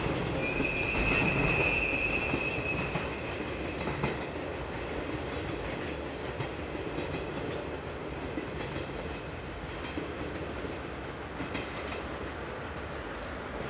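A train of rail-carrying wagons loaded with long rails rolls past and away, wheels clattering over the track. A high wheel squeal sounds for about two seconds near the start, and the rumble fades as the tail of the train draws off.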